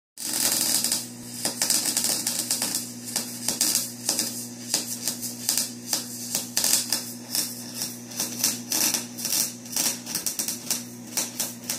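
Lincoln Handy MIG welder's arc crackling and sputtering steadily as a bead is laid on steel, over a low electrical hum. It strikes up suddenly just after the start.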